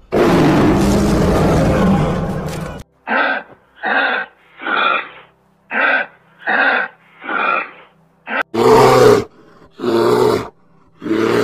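A lion roaring, cut off about three seconds in. Then come six short, evenly spaced grunting calls from a kangaroo, and near the end three louder, deeper growls from a black bear.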